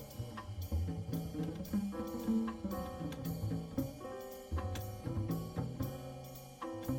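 Background music with a steady drum-kit beat, hi-hat or cymbal strokes and a bass line.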